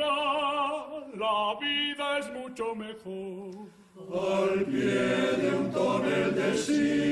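A male soloist sings unaccompanied, his voice wavering with vibrato. After a short breath about four seconds in, the full male-voice choir comes in, singing sustained chords in harmony.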